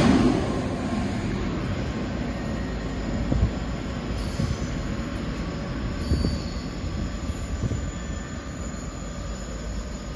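Double-deck TGV high-speed train passing and pulling away, its rumble and wheel noise fading steadily, with a couple of brief knocks along the way.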